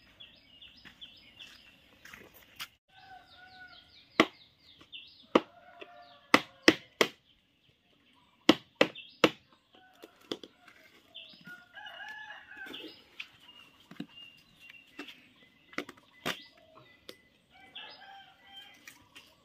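Chickens clucking and calling in the background, while a PVC pipe trap is handled, with scattered sharp knocks and clicks, several in quick succession between about four and ten seconds in.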